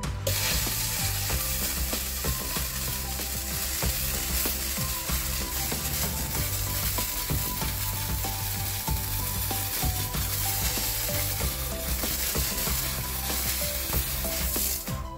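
Vapor Rino dry vapor steam cleaner jetting steam through its single-hole detail nozzle into carpet: a steady, even hiss.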